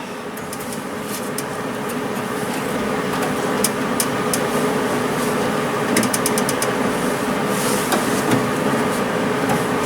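A steady mechanical hum with a held tone, with scattered light clicks and taps over it, including a quick run of clicks about six seconds in.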